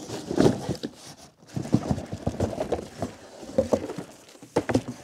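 A cardboard box and its packing being handled and unpacked: a run of irregular knocks, scrapes and rustles.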